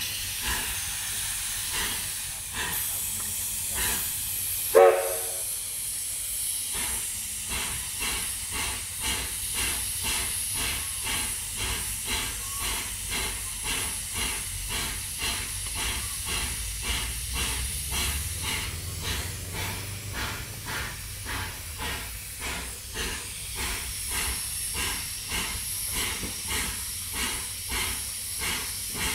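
Steam locomotive standing at the platform, hissing steadily, with one brief loud pitched blast about five seconds in. From about six seconds a regular beat of roughly two strokes a second runs under the hiss.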